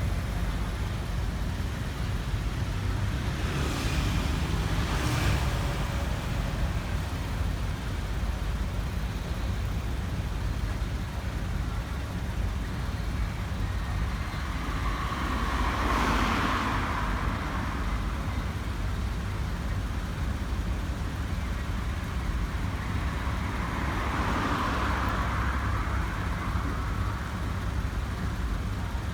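Road traffic: a steady low rumble with several vehicles passing by, the loudest about halfway through and another near the end.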